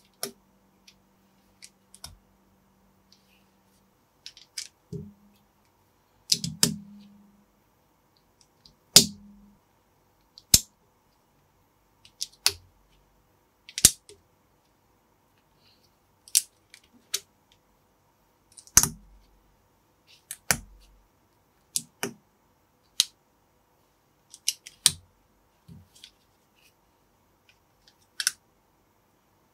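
Plastic Lego-type bricks and minifigure parts clicking and snapping together as they are handled and fitted. The clicks are sharp and irregular, about one a second with short pauses, and a few louder knocks sound as pieces are pressed home or set down.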